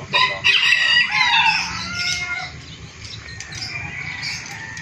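Rooster crowing: one loud crow in the first second and a half, followed by fainter calls.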